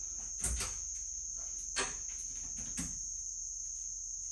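A few sharp clicks, about half a second, just under two seconds and near three seconds in, as the charge controller is switched on. Under them runs a steady high-pitched tone.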